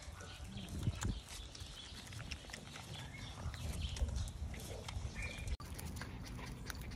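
Miniature Schnauzer puppies suckling from their mother: a dense run of small wet clicks and smacks, with a few faint short squeaks.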